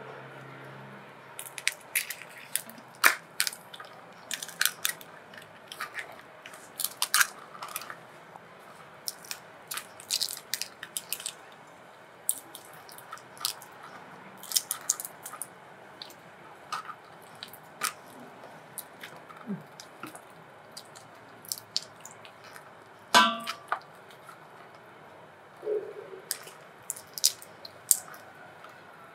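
Raw giant river prawn shells being cracked, snapped and peeled apart by hand on a plastic cutting board: irregular crisp clicks and small cracks, with a louder crack about three-quarters of the way through.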